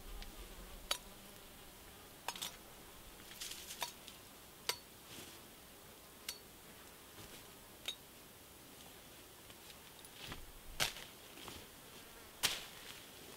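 Scattered sharp clicks and snaps, about a dozen at uneven intervals, over a faint steady insect buzz.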